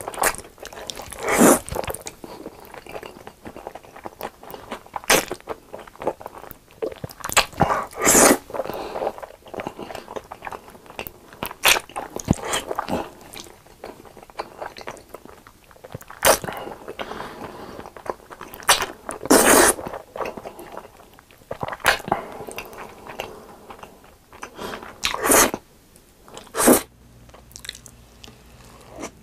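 Close-miked eating: black bean sauce noodles slurped and chewed, with a loud, sharp slurp or bite every few seconds. Near the end it cuts to another eater, with a steady low hum underneath.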